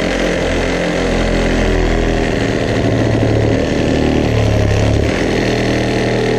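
Cordless reciprocating saw with a pruning blade running steadily as it cuts through a downed tree limb; the motor and blade start abruptly and keep running, with a slight shift in tone about four seconds in.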